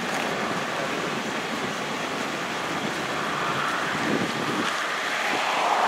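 Wind blowing across the camera microphone: a steady rushing noise that grows a little stronger near the end.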